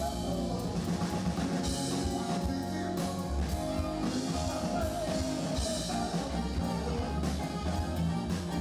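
Live rock band playing, with drum kit and guitar under a wavering lead line.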